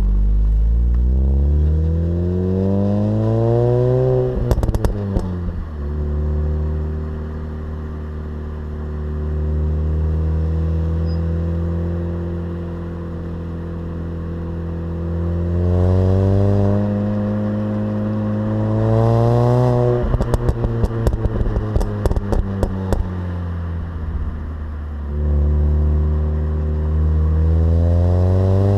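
Mini Cooper S R53's supercharged 1.6-litre four-cylinder engine on its stock exhaust, accelerating three times with the pitch climbing over a few seconds, running steadily in between. Each time the revs drop there is a burst of sharp crackles.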